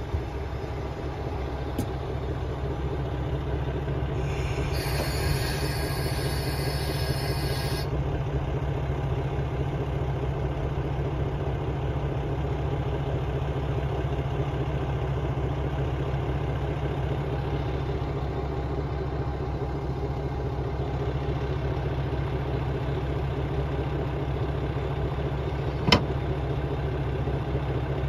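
KiHa 120 diesel railcar idling at a standstill with its doors open, its engine a steady low drone. A high ringing tone sounds for about three seconds a few seconds in, and a single sharp click comes near the end.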